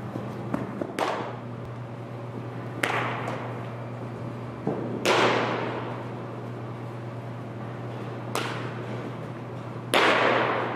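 Baseball drill impacts in a large indoor hall: five sharp cracks and pops of ball against bat or glove, a second or two apart, each ringing on in a long echo, the last the loudest. A steady low hum runs underneath.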